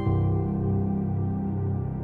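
Background music: a soft ambient chord that begins at the start and is held, slowly fading.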